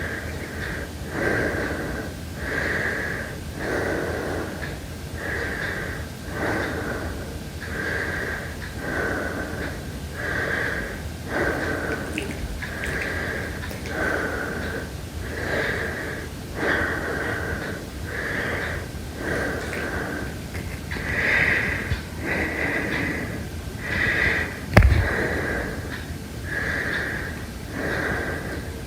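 Heavy breathing in a slow, even rhythm of in- and out-breaths, about one full breath every two and a half seconds. A single sharp knock sounds near the end.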